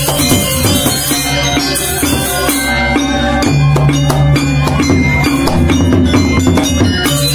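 Balinese gamelan gong ensemble playing: bronze metallophones ringing in dense interlocking patterns over kendang drums, with a strong low held tone from about halfway through and sharp percussive strokes in the second half.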